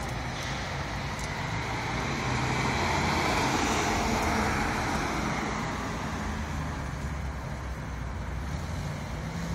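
Audi A6 4.2's V8 engine and loud exhaust as the car drives past, growing to its loudest about three to four seconds in, then fading as it pulls away.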